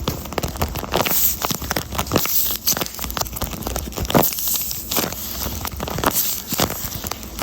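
A handmade paper squishy being squeezed and released by hand, crinkling and crackling irregularly.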